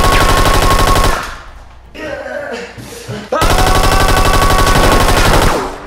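Dubbed action-movie machine-gun sound effects: two long bursts of rapid automatic fire, each about two seconds, with a short quieter gap between them.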